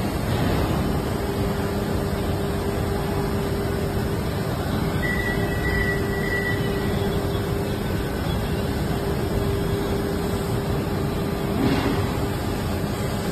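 Injection moulding machine running with its mould clamped shut: a steady machine hum with a constant mechanical noise under it, and a brief knock near the end.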